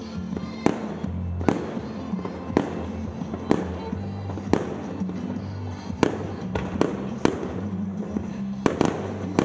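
Aerial fireworks shells bursting with sharp bangs about once a second, several in quick succession near the end, over music with a steady bass line.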